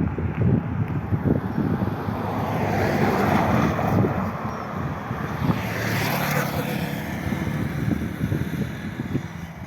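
A vehicle passing close by at the level crossing, its noise swelling through the middle range and peaking about six seconds in, over a steady low rumble with wind on the microphone, then fading near the end.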